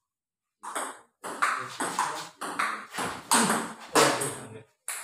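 Table tennis rally: the celluloid ball clicking off bats and the table in quick succession, about two to three strikes a second, starting about half a second in. Each click rings briefly in the room.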